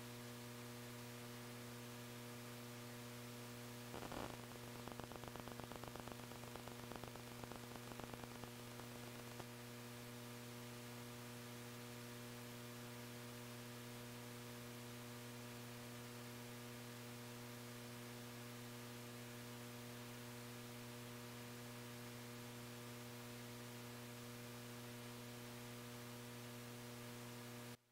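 Steady electrical mains hum with hiss and no room sound, a sign of the audio dropout on the recording chain's channel A, with a patch of crackling about four to nine seconds in. The hum cuts off suddenly near the end.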